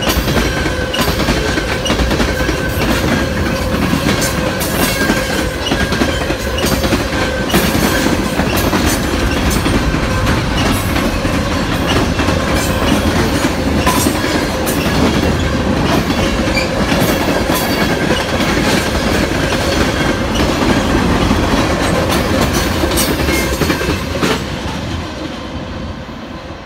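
Cars of a mixed freight train (tank cars, boxcars, covered hoppers) rolling past: steady wheel rumble with frequent clicks of wheels over the rail joints and a faint steady squeal. It fades near the end as the last cars move away.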